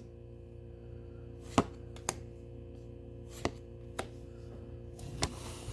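Pokémon trading cards being handled and laid down on a table: about five short, sharp taps at uneven intervals over a faint steady hum.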